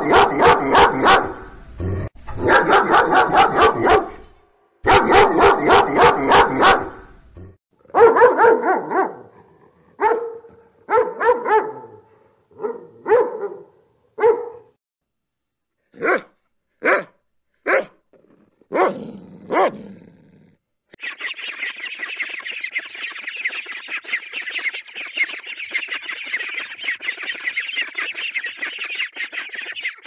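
A dog barking: rapid runs of barks at first, then slower barks in twos and threes, then single sharp barks. About two-thirds of the way through, the barking gives way to a continuous high chatter of mallard ducks and ducklings calling.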